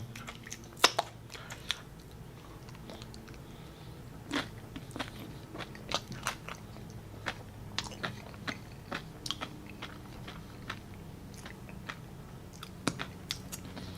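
Someone chewing loaded nachos, the tortilla chips giving irregular sharp crunches, the loudest about a second in. A faint steady low hum runs underneath.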